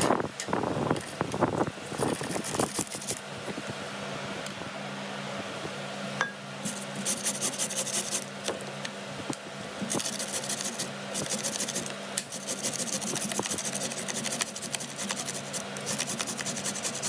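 A carrot being grated on a flat stainless-steel grater: fast, repeated rasping strokes that come in runs from about six seconds in. A few louder scrapes and knocks come in the first couple of seconds, and a steady low hum runs underneath.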